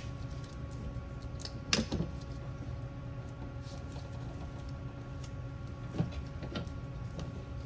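Light clicks and knocks from hand work in a car's engine bay as the air-injection check valves and hoses are worked loose, over a steady background hum. The most distinct knocks come about two seconds in and again about six seconds in.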